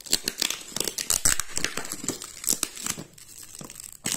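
Thin plastic wrapping crinkling and crackling as it is handled around a clear plastic box, busiest for the first three seconds. Near the end, a single sharp snip of scissors cutting the wrap.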